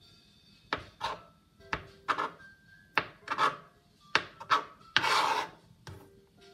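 Kitchen knife chopping and scraping boiled eggs on a plastic cutting board: a string of sharp taps, each followed by a short scrape, then a longer, louder scrape about five seconds in.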